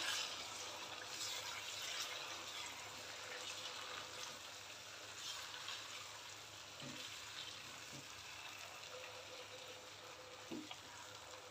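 Parboiled raw mango pieces sizzling faintly in hot mustard oil in a wok as they are stirred with a silicone spatula, with a few soft knocks of the spatula near the middle and end.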